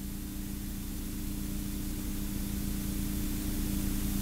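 Steady hiss with a low, even hum, slowly growing louder: the background of an open commentary microphone feed with no one speaking.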